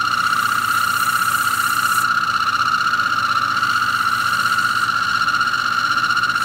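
Small lathe spinning a pool cue at low speed, its drive giving a steady high-pitched whine, while the cutting tool takes a pre-cut on a Kamui Black soft leather tip. A high hiss from the cut comes in about two seconds in and fades about five seconds in.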